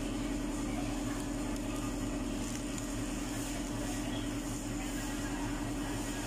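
Steady mechanical hum, unchanging throughout.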